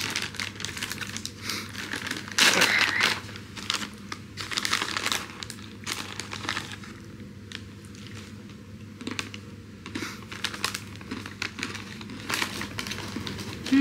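Plastic snack bag of chevra, an Indian fried snack mix, crinkling and rustling as it is handled. The rustles come in irregular bursts, loudest about two and a half seconds in and again around five seconds.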